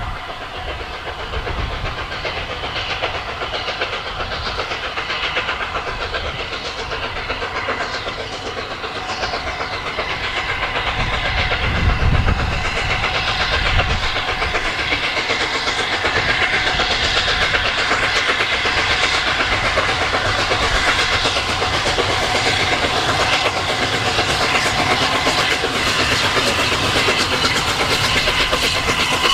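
Steam locomotive 60103 Flying Scotsman, an LNER A3 Pacific, working hard as it approaches hauling a train: a fast, steady three-cylinder exhaust beat with hiss, growing louder as it nears.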